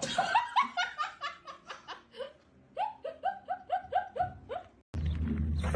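A person laughing hard in two long runs of quick, high-pitched "ha" bursts, about five a second, with a short break about two seconds in. Near the end it cuts off sharply into a steady low rumble.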